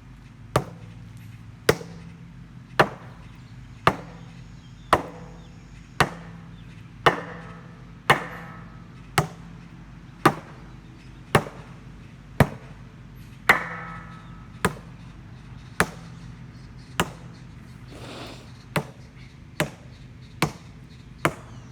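Sledgehammer striking the rusted steel shell of an old water heater about once a second, some twenty blows in a steady rhythm, a few of them followed by a short metallic ring.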